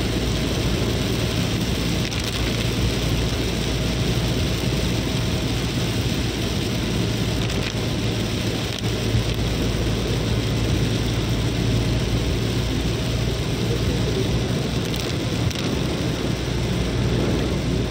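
Heavy rain falling on a moving vehicle, heard from inside the cab, over a steady low rumble of engine and road noise.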